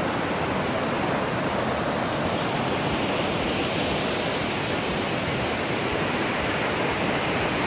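Steady rush of monsoon-swollen river water pouring over a small check dam and churning into white water.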